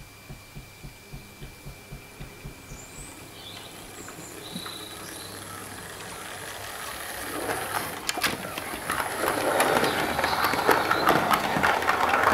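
Model trains running on the layout. First comes a soft, regular beat at about four a second. From about seven seconds a louder rattle builds, with many quick clicks of wheels over the track as a train runs close by.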